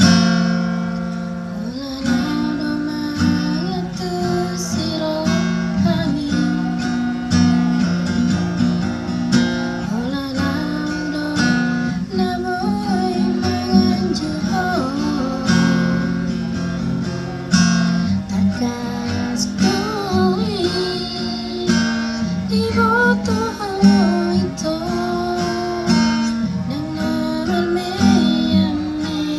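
Music: acoustic guitar strummed steadily, with a gliding melody line over it for much of the time.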